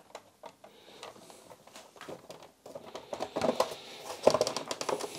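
Hard plastic clicking and scraping as the clear lens and housing of a BMW E30 instrument cluster are worked together by hand. The clicks are scattered at first and come thicker and louder in the second half as the cluster is pressed shut.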